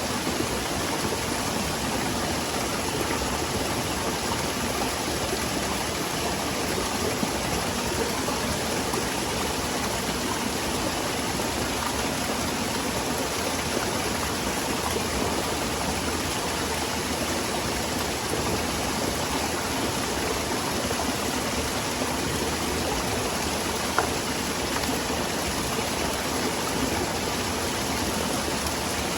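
Small waterfall splashing into a forest stream, a steady rush of falling and flowing water, with one faint click about twenty-four seconds in.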